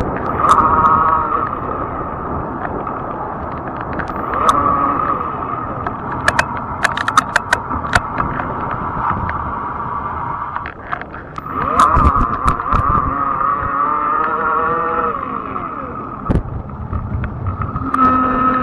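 Fat-tire e-bike on the move: a whining motor tone that holds steady, then rises and falls with speed, over tyre and road rumble. A run of sharp clicks and rattles comes about a third of the way in, and there are a couple of knocks later.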